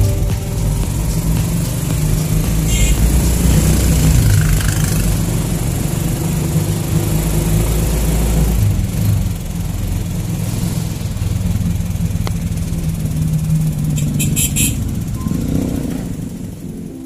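Small motorcycle engine running and road noise, heard from inside a moving motorcycle-sidecar tricycle, with a brief rattle a few seconds before the end.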